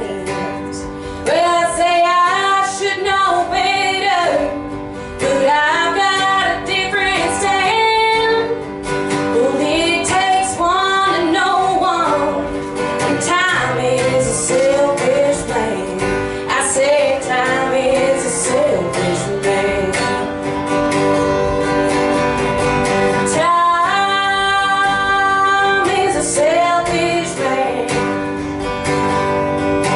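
A woman singing a song live while playing an acoustic guitar.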